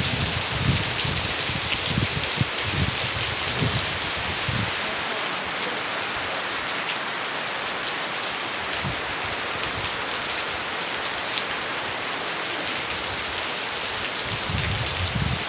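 Steady rain falling, a dense even hiss, with low gusty rumbles in the first few seconds and again near the end.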